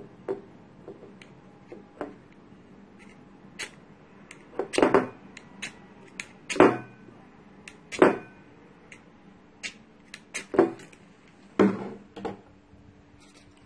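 A knife blade scraping a magnesium fire-starter rod over a plate of cotton. First come light scrapes that shave off magnesium dust, then, from about five seconds in, about five hard strikes a second or two apart that throw sparks and light the cotton.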